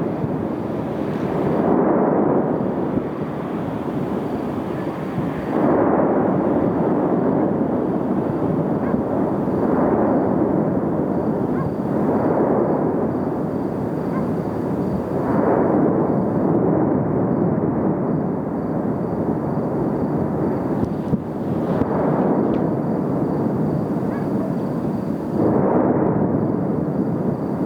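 Erupting Cumbre Vieja volcano: a continuous rumble that swells into a louder surge every two to four seconds, some surges starting abruptly like blasts.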